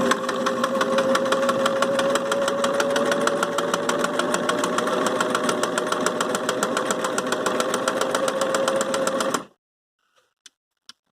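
Singer 328K sewing machine running at a steady speed and stitching: a motor whine under a rapid, even clatter of needle strokes. It stops about nine seconds in, followed by a few faint clicks.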